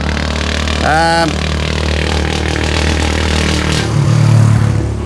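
Roadside traffic: motor vehicles passing over a steady low engine hum, with one louder engine swelling past near the end. A short pitched tone with a bending pitch sounds about a second in.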